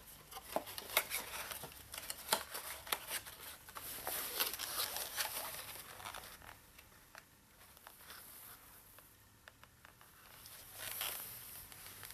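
Cardboard phone box being handled: flaps and inner tray folded and slid, with rustling, scraping and many sharp clicks, busiest in the first half and with another rustle near the end.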